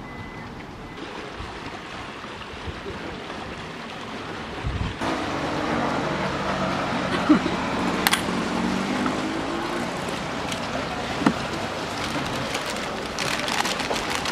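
Steady outdoor background noise that gets louder about five seconds in, with a faint low hum and three sharp clicks in the middle, one of them about eight seconds in.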